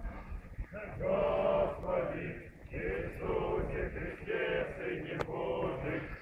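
A group of Orthodox procession walkers chanting a prayer together in sustained, sung phrases.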